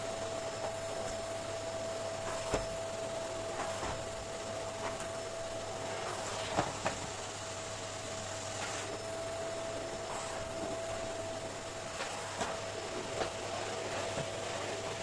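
A steady machine-like hum with a faint held tone, and a few light clicks and knocks scattered through it, two close together about two-thirds of the way in.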